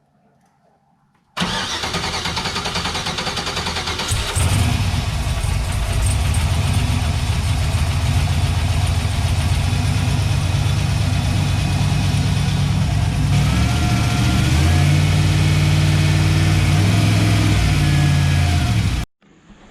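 Turbocharged 5.3-litre LS V8 cranking on the starter for about three seconds, then catching and running at a fast idle whose pitch steps up and down, first start after the cylinder heads were refitted. The sound cuts off suddenly near the end.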